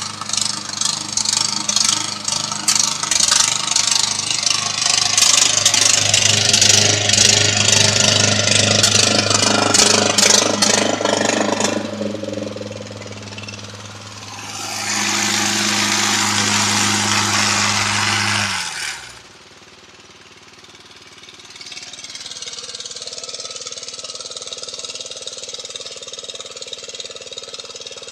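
Murray 10/30 riding lawn mower's engine running steadily under a dense rattle, with a loud rushing noise over it a little past halfway. The engine then winds down and stops, and a fainter steady sound follows.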